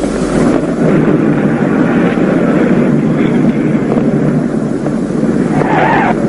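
Loud, steady rumble of a vehicle engine.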